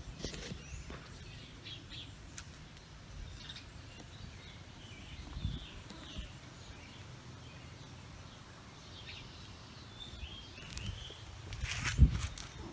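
Small birds chirping here and there over a low outdoor rumble, with a sudden thump near the end.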